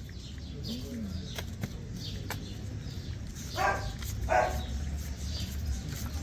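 A dog barking twice in quick succession over a steady low background hum.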